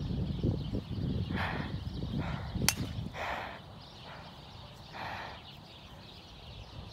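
A golf club strikes a ball once, a single sharp crack about two and a half seconds in, over a low rumble on the microphone in the first half.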